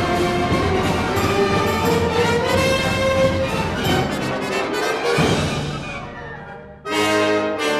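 Symphony orchestra playing a dense passage of contemporary classical music, with brass and woodwinds prominent. The sound dies away near the end, then the full orchestra comes back in suddenly with a loud held chord.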